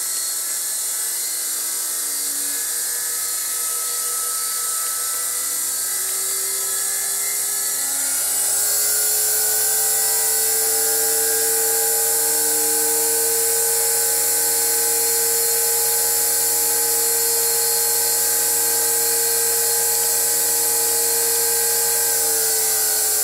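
Bench grinder motor and its grinding wheels spinning on a variable-frequency drive: a steady whine over a high rush of air. About eight seconds in, the whine rises in pitch and grows louder as the drive is turned up from 60 Hz. Near the end the pitch starts to drop as it is turned back down toward 80 Hz.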